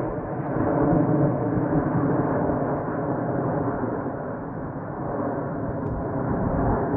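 Jet roar of Blue Angels F/A-18 Super Hornets in flight, a dense rumbling rush with a faint steady hum in it, slowly fading as the jets pass and move away.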